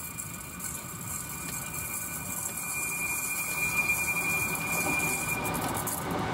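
Electric locomotive E422.0003 and its carriages approaching on curved track, the rumble of the train growing steadily louder. A thin, steady high squeal, typical of wheels on a curve, runs through it and stops near the end.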